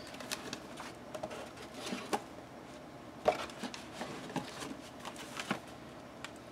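Scattered light taps and clicks of paper and small craft tools being handled on a tabletop, at irregular intervals, with a sharper knock about three seconds in.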